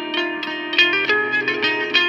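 Clean electric guitar through a Wangs HD-15 amp head on its clean channel, with a Caline Snake Bite reverb pedal: a quick run of picked single notes and double-stops, each ringing on into the next.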